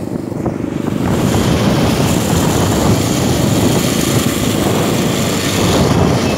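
Motorcycle riding at road speed: the engine running steadily under heavy wind noise buffeting the microphone, a little louder from about a second in.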